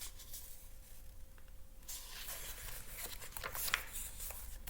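Paper rustling as a picture-book page is handled and turned, starting about two seconds in, over a steady low room hum.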